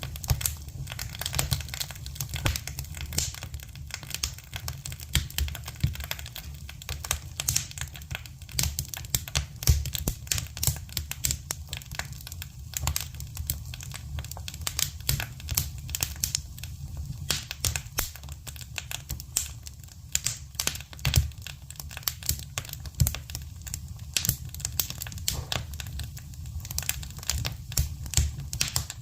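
Wood campfire crackling, with dense irregular pops and snaps over a low steady rumble.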